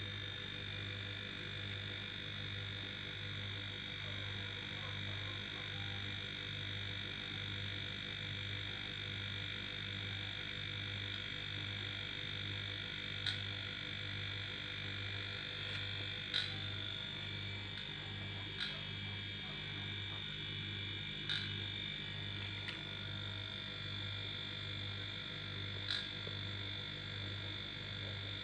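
Homemade air compressor, built from a split air-conditioner's rotary compressor, running with a low electrical hum that pulses evenly, over a steady high whine. A few sharp ticks sound in the second half.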